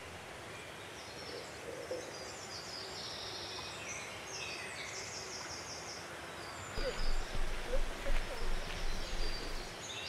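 Forest ambience: songbirds singing phrases of quick repeated high notes over a steady outdoor hiss. From about seven seconds in, an uneven low rumble comes and goes underneath.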